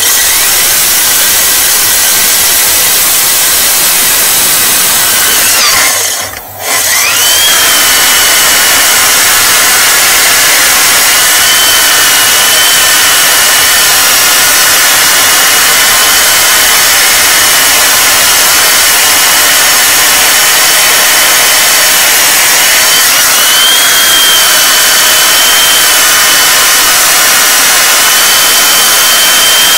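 Electric core drill with a 125 mm core bit cutting through hard red brick, together with a vacuum cleaner sucking up the dust at the bit. The noise dips briefly about six seconds in, then runs on steadily with a high whine.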